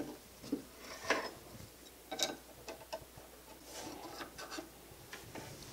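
Faint small clicks and rubs of hands working an antique sewing machine's bobbin area: thread drawn up, then the metal slide plate pushed shut over the bobbin, with a quick run of ticks near the end.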